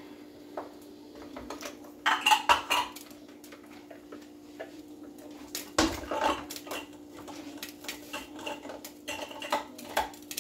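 Clinks, clacks and knocks of a small container and the parts of a mini food processor being handled and set down on a countertop. They come in scattered bunches: a cluster about two seconds in, a knock near six seconds, and several more near the end. The processor's motor is not running.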